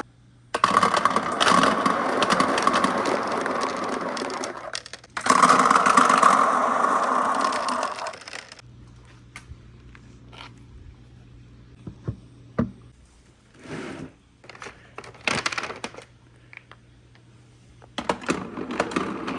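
Marbles rolling and rattling along a handmade wooden marble run, a dense continuous rolling noise that breaks off briefly midway. It then gives way to scattered clicks and clacks as the marbles knock against the track, and the rolling starts again near the end.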